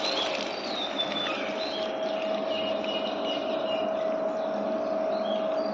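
Birds chirping over a steady machine hum that holds one constant pitch.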